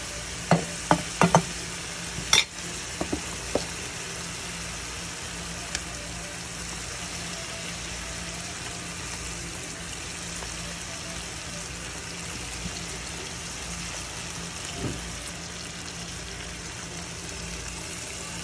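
Fried mrigal fish pieces cooking in a tomato-onion gravy in a frying pan, with a steady sizzle throughout. A handful of sharp clicks and clatters against the pan come in the first few seconds, as tomato wedges go in.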